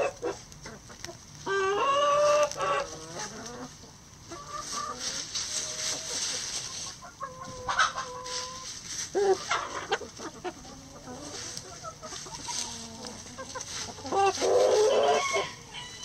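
A flock of chickens clucking and calling on and off, with louder drawn-out calls about a second and a half in, in the middle and near the end, over the scratching of birds foraging in dry pine needles and leaves.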